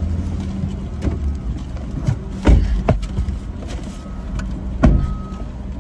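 Low steady rumble of a car, with two loud thumps about two and a half seconds apart.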